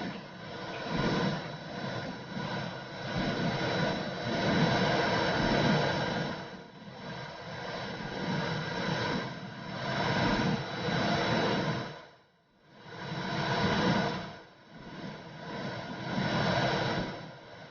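Womb sound for soothing a baby: a whooshing, white-noise-like rush that swells and fades in slow waves every second or two, dropping away briefly about two-thirds of the way through.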